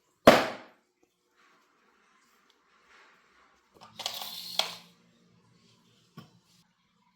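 Electronic sound effects from a toy knife: a sharp impact-like burst that fades over about half a second, then about four seconds in a second, longer noisy effect over a low steady hum, with a click inside it and another click about two seconds later.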